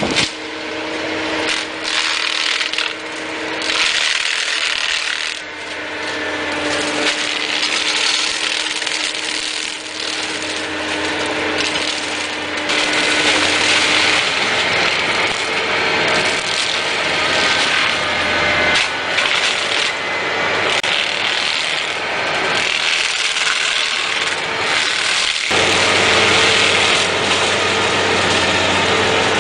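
Caterpillar 345 long-reach excavator's diesel engine running under load while its boom-end attachment tears through brush, with dense cracking and splintering of branches. The engine note drops lower and gets louder about 25 seconds in.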